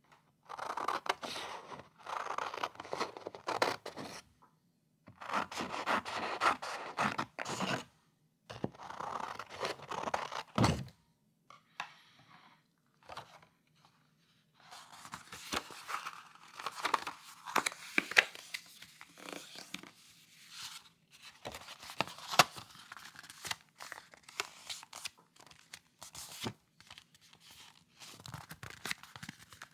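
A blank sheet of paper being torn in several separate pulls of a second or two each, then crumpled with many sharp crackles through the second half.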